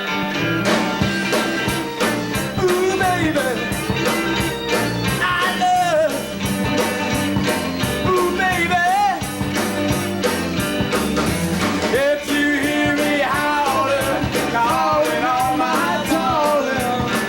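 Rock band playing: a regular drum beat comes in just under a second in, joining the guitar, with a bending lead melody over them.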